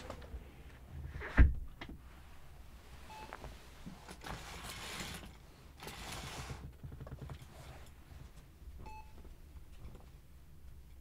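A single dull thump about a second and a half in, then soft rustling of movement and two short electronic beeps several seconds apart, like a hospital monitor.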